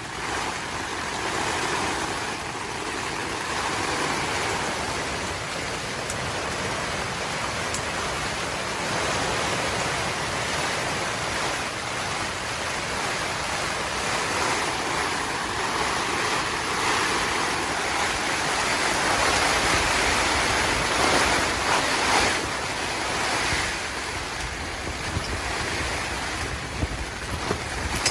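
Storm wind and rain: a steady rushing noise that swells and eases in gusts, loudest about twenty seconds in.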